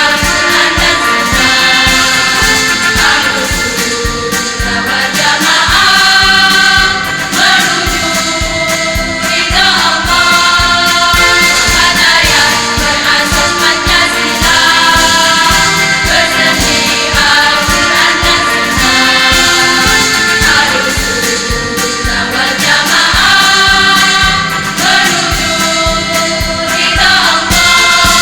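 A women's choir singing in unison over a musical accompaniment with a steady beat.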